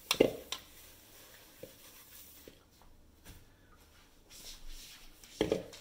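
A plastic mixing bowl knocks twice against a hard countertop as it is handled and set down, then faint rubbing and rustling of a paper towel and hands follow, with a few small clicks. Another short knock comes near the end.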